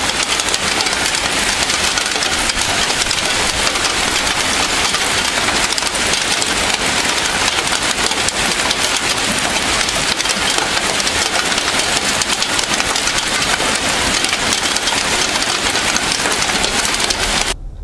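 Heavy rain mixed with hail pelting down on asphalt and foliage: a loud, dense, steady hiss made of countless small impacts. It cuts off abruptly just before the end.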